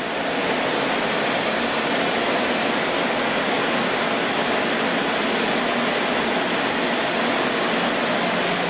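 Steady rushing noise of cooling fans and air conditioning in a server room, with a faint low hum under it.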